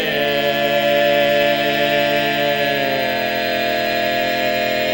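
Barbershop quartet of four male voices singing a cappella in close harmony, holding one long chord, with the lower voices shifting about three seconds in.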